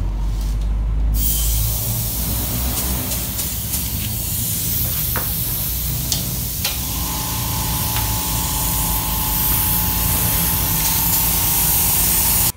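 Air spray gun hissing steadily as it sprays gray primer, starting about a second in, over a low steady hum.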